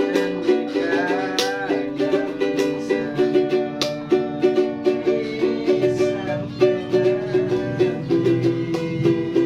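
Music: a plucked-string melody over a steady beat, played during a sound check.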